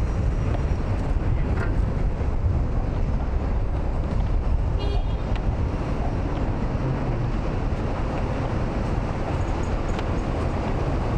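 City street ambience: steady traffic noise with a low rumble, heard from the sidewalk. A brief high chirp comes about five seconds in.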